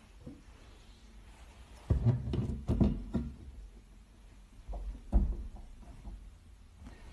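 A few soft knocks and thuds: a cluster about two seconds in, then another about five seconds in, the sharpest knock among them.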